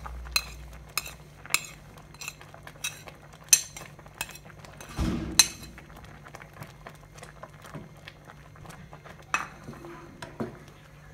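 Metal ladle clinking and scraping against a ceramic plate and an aluminium pot as chopped greens are pushed off into boiling porridge and stirred in. Sharp, irregular clinks, busiest in the first half, with a longer scrape about five seconds in.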